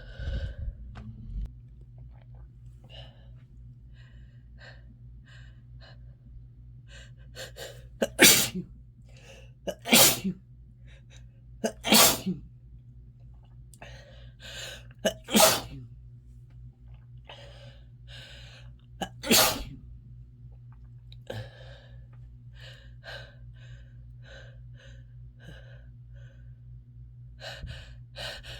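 A person with an itchy, runny nose sniffling and sneezing: five loud, sharp bursts come through the middle stretch, with many quieter short sniffs and swallowing clicks around them.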